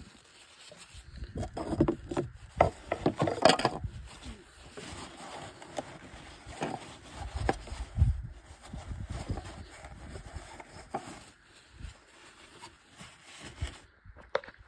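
A rag rubbing and scraping inside a car's oil filter housing as the housing is wiped out, with irregular knocks and bumps. The busiest stretch is in the first few seconds, then the sounds come and go.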